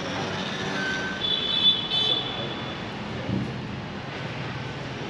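City street traffic, a steady hiss of vehicles. A brief high-pitched squeal cuts in about a second in, and a short low thump follows about three seconds in.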